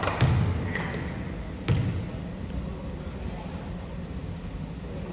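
A basketball bouncing on a gym floor: two low thuds in the first two seconds, then quieter.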